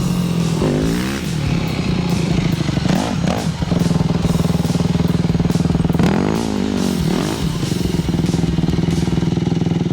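Motorbike engine running steadily, with background music and singing over it.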